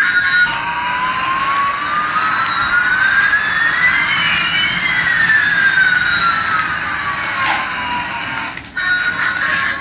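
Jet engine sound effect: a steady rushing hiss with two whistling tones, one rising and one falling, that cross about halfway through. It drops out briefly near the end.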